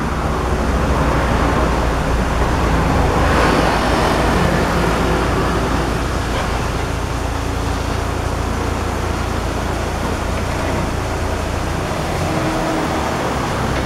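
A car's engine running with a steady low rumble and broad road-type noise. The unusual noise being checked on the car comes through only faintly, quieter than it usually gets.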